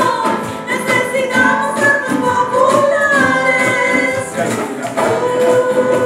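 Live band playing a song, with voices singing a melody over acoustic guitar and keyboard.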